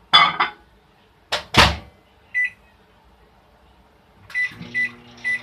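Microwave oven being shut and started: a couple of clunks from the door, a keypad beep about two and a half seconds in and three quick beeps near the end, then the oven starts running with a steady low hum.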